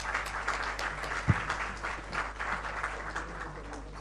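Audience applauding, the clapping thinning out toward the end, with a single low thump about a second in.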